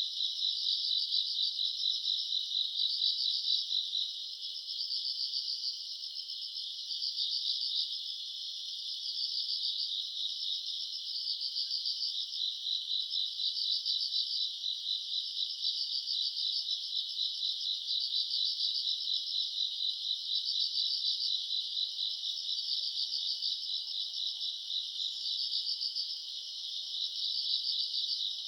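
Chorus of crickets and other grass insects chirring on a summer night: a dense, continuous high trilling that swells and eases every second or two.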